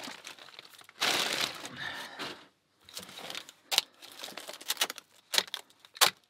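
Plastic trash-bag wrapping crinkling and rustling as it is pulled off a parcel, followed in the second half by several light, sharp clicks and knocks of the contents being handled.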